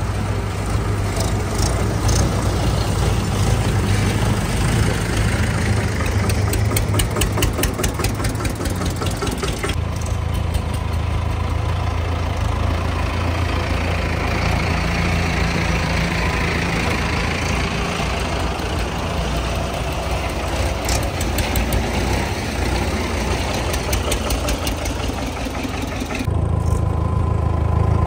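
Diesel tractor engine running with a steady low note and a fast ticking rattle over the first ten seconds. The sound changes abruptly about ten seconds in and again near the end.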